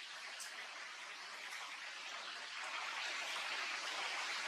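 Steady outdoor background hiss, like rushing water or wind, with a few faint brief high chirps in the first half; it grows a little louder in the second half.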